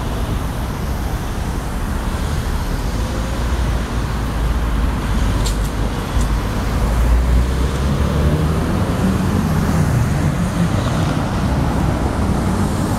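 Congested city-street traffic crawling past: a steady rumble of car engines and tyre noise. The hum of a nearby engine grows stronger about two-thirds of the way through.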